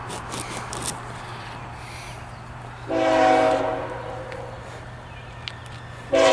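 CSX freight locomotive's air horn sounding a chord of several tones in two blasts: one about three seconds in that holds briefly and fades, and another starting near the end. Rustling handling noise on the camera microphone in the first second.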